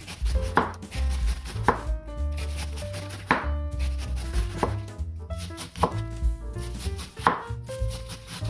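Chef's knife finely shredding a quarter head of cabbage on a wooden cutting board: a run of crisp slicing strokes, the blade tapping the board at an uneven rhythm.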